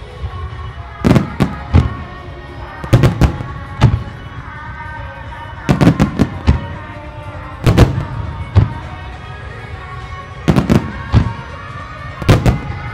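Aerial firework shells bursting with sharp bangs in quick clusters of three or four, a cluster about every two seconds, with music playing underneath.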